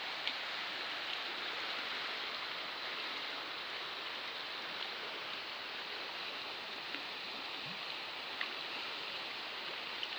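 River water rushing steadily, with a couple of faint ticks.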